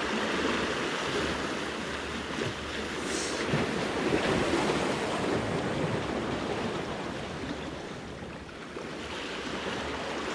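Sea waves washing and breaking against shoreline rocks, the surge swelling and easing, with some wind on the microphone.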